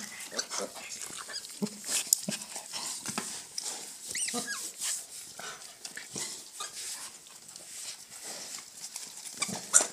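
Piglets squeaking and grunting at close range, in short irregular bursts with some rustling. About four seconds in comes one longer high squeal that rises and falls.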